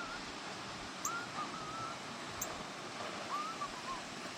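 Short wavering whistled calls, twice, over a steady outdoor noise bed.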